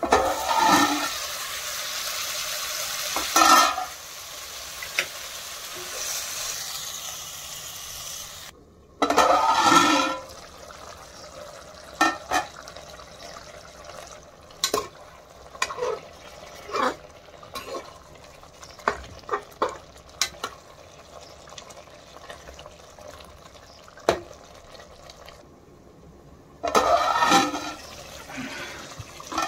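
Chicken curry boiling in a steel pot as the steel lid is lifted off, with a loud hiss of bubbling and steam over the first few seconds, then a metal spoon stirring and clinking against the pot. Louder metal clatters come near the start, about ten seconds in and near the end.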